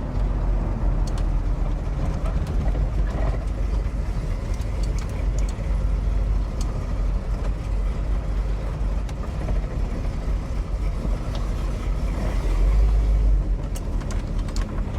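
1969 Shelby GT500's 428 Cobra Jet V8 running while the car is driven, heard from inside the cabin as a steady low rumble that swells louder for about a second near the end.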